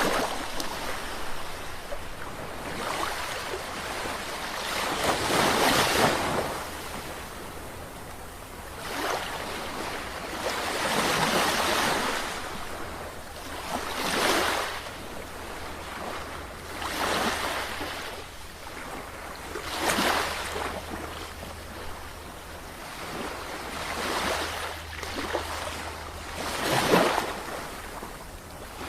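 Sea waves breaking and washing on the shore. The surf swells and fades in repeated surges about every three to four seconds.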